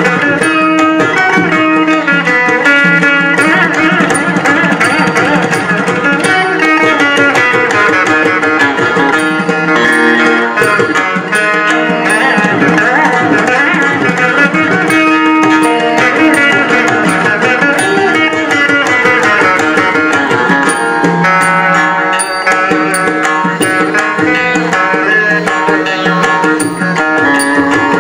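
Saraswati veena played solo in Carnatic style, a quick run of plucked notes with sliding, bending ornaments between them, in raga Hindolam.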